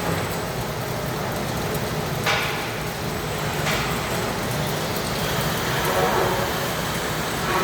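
Woodworking CNC drilling centre running steadily, with two sudden hissing bursts of the kind a compressed-air release makes, about two and three and a half seconds in.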